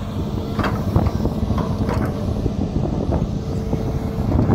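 Hitachi hydraulic excavator's diesel engine running steadily under load as the bucket digs into and lifts wet mud, with several short knocks from the bucket and arm.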